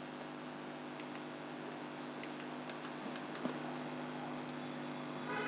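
Faint, scattered short clicks from a computer pointer being worked, over a steady low electrical hum in the recording.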